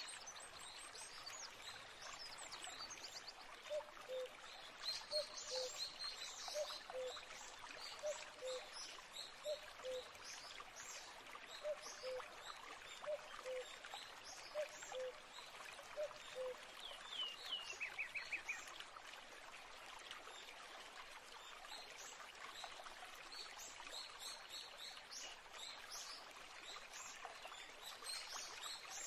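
Nature ambience of a flowing stream with birds: a steady water rush with high chirps throughout. A low, falling two-note call repeats roughly once a second from about four seconds in until past the middle, followed by a brief falling trill.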